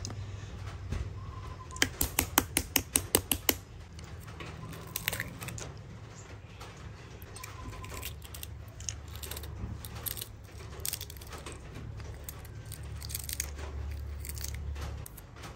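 Shell of a boiled balut (fertilised duck egg) tapped about ten times in quick succession to crack it, followed by small, scattered crackles and clicks as the shell fragments are picked off by hand.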